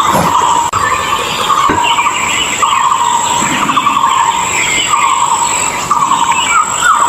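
White-rumped shama singing: repeated short, rapid chattering phrases, with a few rising whistled notes near the end, over a steady high-pitched whine.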